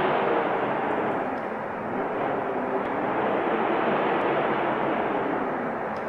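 Snowstorm wind blowing: a steady rushing noise that eases a little about two seconds in and again near the end.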